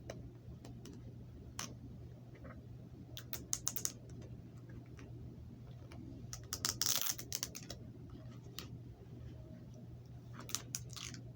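Fingers peeling security tape off a plastic DVD case: scattered plastic clicks and ticks, with a short scratchy peel about 7 seconds in, over a steady low hum.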